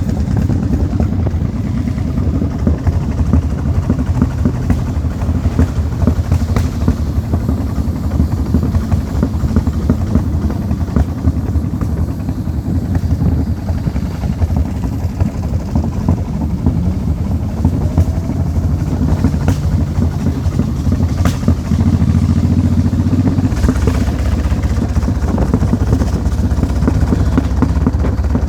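An engine running steadily, its pitch shifting slightly now and then.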